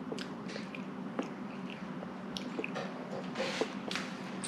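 A baby eating finger food in a high chair: scattered small chewing and mouth sounds, with soft clicks and taps of fingers and food on the tray.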